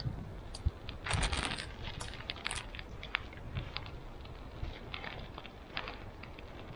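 Small fire catching: scattered irregular crackles and clicks, with a short denser rustling crackle about a second in.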